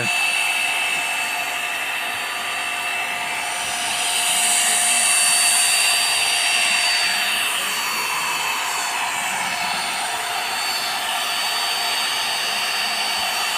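Electric pressure washer running with a steady motor whine while its water jet sprays across a broken-tile roof; the spray hiss grows louder about four to six seconds in.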